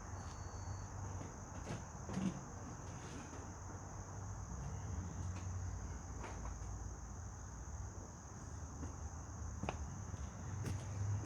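Steady high-pitched chirring of insects, with a faint low rumble underneath and a few scattered faint clicks and knocks.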